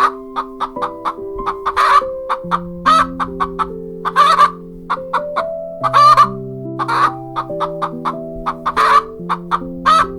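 Chicken clucking in quick short notes, broken every second or so by louder, longer squawks, over background music of slow held chords.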